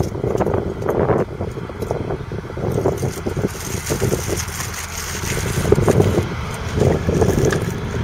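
Deutz-Fahr 5660-HTS combine harvester running, its 6.1-litre six-cylinder diesel engine and machinery making a loud, uneven mechanical noise, with a rise of hiss about halfway through.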